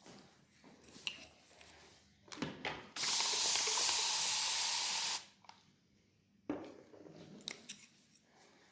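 A spray hissing steadily for about two seconds, starting and cutting off sharply, with light clicks and rubbing from handling before and after.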